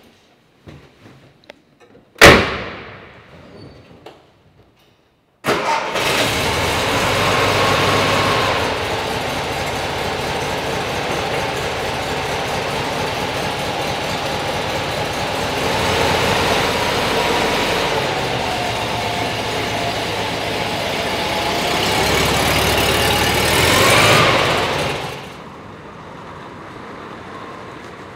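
Car door of a split-window Volkswagen Beetle slammed shut about two seconds in. A few seconds later its air-cooled flat-four engine starts and runs, the revs rising and falling a few times, and the engine sound turns quieter near the end.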